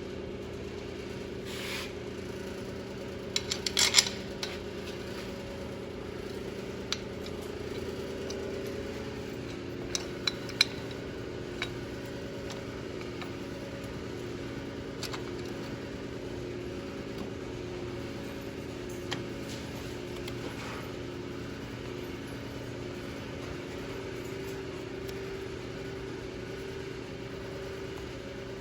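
Steady mechanical hum of shop equipment with light metallic clinks and taps of tools or parts being handled, a quick cluster about four seconds in and a few more around ten seconds in.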